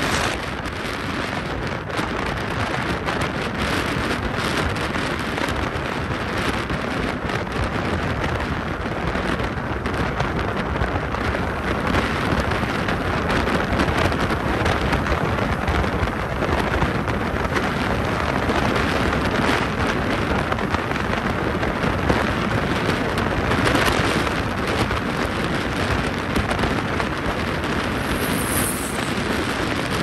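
Wind rushing and buffeting over a phone's microphone held out of the window of a moving car: a loud, steady roar of air with road noise under it.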